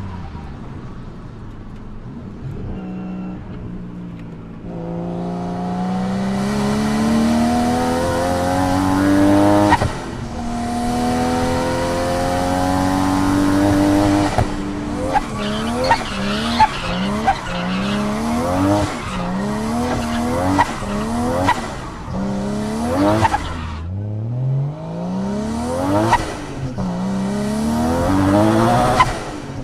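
Nissan RB25 turbocharged straight-six engine running hard. It climbs steadily in revs twice and drops sharply between the climbs. It then goes through a run of short, quick rises and falls in revs, about one a second, each peak marked by a sharp crack. Near the end it climbs again.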